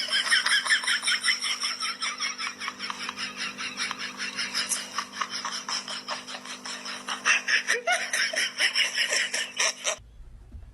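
Rapid, high-pitched laughter, about four or five bursts a second, over a steady low hum; it cuts off suddenly near the end.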